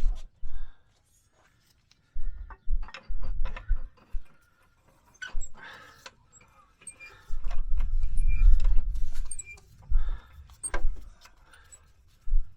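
Scattered clinks and knocks of tools and brake parts being handled, with bursts of low rumble, the longest about seven to ten seconds in.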